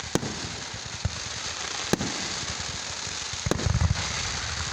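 Aerial fireworks bursting: sharp bangs roughly a second apart, then a deeper boom with a low rumble about three and a half seconds in, over a steady crackling hiss.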